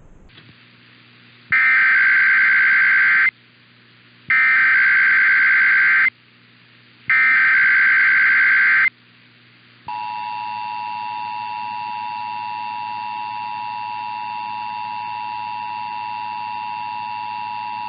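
Emergency Alert System test signal: three bursts of SAME header data, a rough warbling data tone each just under two seconds long with short gaps between. About ten seconds in, the steady two-tone EAS attention signal (853 and 960 Hz) starts and holds.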